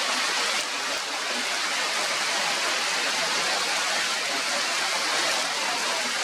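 Steady rain falling on forest leaves, a constant even hiss.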